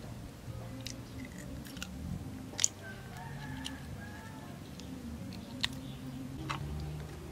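Grilled chicken torn apart by hand and bitten and chewed: a few sharp snaps and crackles, the loudest about two and a half seconds in, over a low steady hum.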